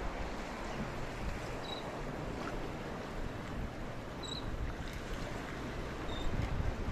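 Steady wind and water noise at a shoreline, with wind buffeting the microphone. Three short, faint high chirps come through it, spaced about two seconds apart.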